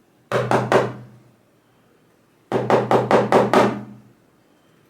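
Rapid sharp knocks on a Lips Octro lock, struck to jar a top pin (driver) and its spring out of its chamber: a quick run of about four knocks, then, about two seconds later, a longer run of seven or eight.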